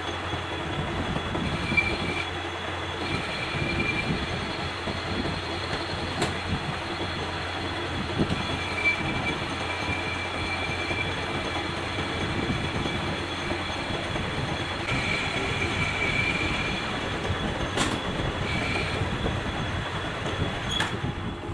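Lathe running with a steady mechanical hum and an on-and-off high-pitched squeal, with a few sharp clicks.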